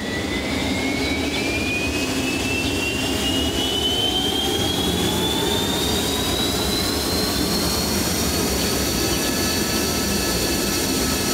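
Fighter jet engine noise: a steady rushing roar with a turbine whine that rises slowly in pitch over most of the stretch and then holds.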